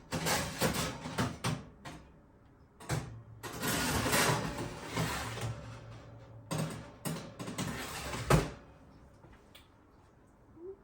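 Kitchen handling noise: a run of knocks and clatters from an oven door and a metal baking tray being handled, with a longer rustling hiss in the middle and a sharp clunk near the end.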